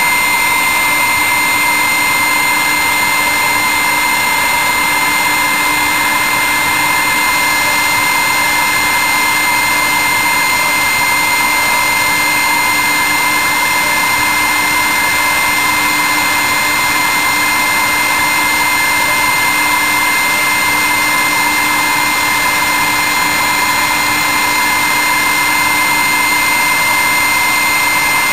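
High-speed spindle of a CNC milling machine, turning at about 20,000 rpm, running with a steady whine made of several constant tones while it drills holes in a printed circuit board with a 0.6 mm solid-carbide drill.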